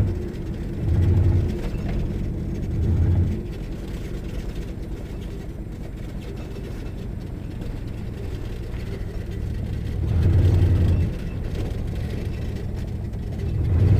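Chevrolet 350 V8 pickup truck running as it drives slowly along a rough dirt track, heard from inside the cab. A steady low rumble, with four short, louder low swells at about one, three, ten and a half and fourteen seconds.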